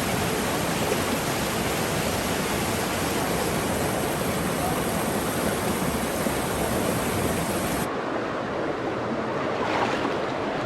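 Steady rush of fast-flowing river water, a dense even hiss. About eight seconds in it changes abruptly and the highest hiss drops away.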